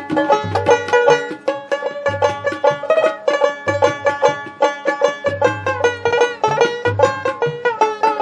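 Background music with fast-picked banjo notes over a recurring bass note, in a bluegrass style.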